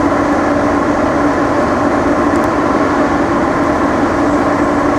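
Steady running drone of a moving aerial tram cabin, a constant hum with a held low tone over an even rumble.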